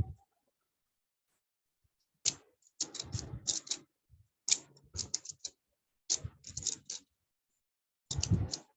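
Rubik's Cube being twisted, its plastic layers clicking in about five quick flurries of turns with short pauses between.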